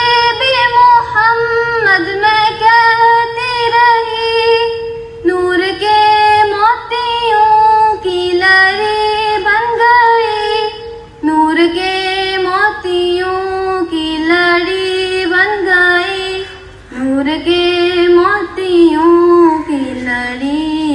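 A girl's solo voice singing an Urdu naat (devotional song in praise of the Prophet) into a microphone, in long ornamented phrases with short breaths about every five to six seconds. A steady held tone sounds underneath.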